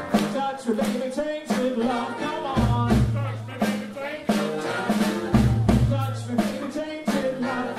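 Live pop-rock band: a woman singing lead into a microphone over a drum kit keeping a steady beat, with heavy bass notes underneath.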